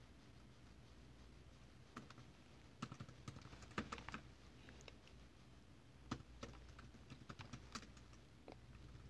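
Faint keystrokes on a laptop keyboard, irregular clicks in short runs with gaps between them.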